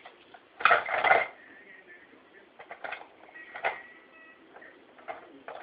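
A person making funny noises in a string of short separate bursts, the loudest about a second in, some with a thin whistly squeak.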